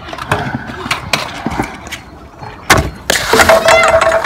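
Freestyle scooter wheels rolling and clattering on concrete, with scattered knocks, then one loud bang nearly three seconds in as the scooter hits the concrete. A louder, busier stretch of noise with rising and falling tones follows.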